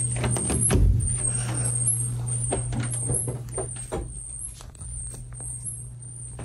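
Handling noise and scattered soft knocks and thumps from a camera phone carried by someone walking, the loudest thump about a second in, over a steady low hum.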